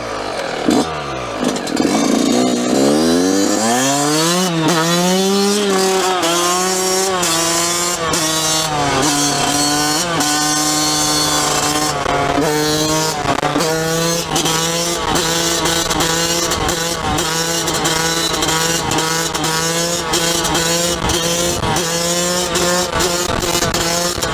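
Yamaha YZ dirt bike engine accelerating hard through the gears, its pitch climbing and dropping back at each upshift. It then cruises at a steadier pitch, with the throttle wavering.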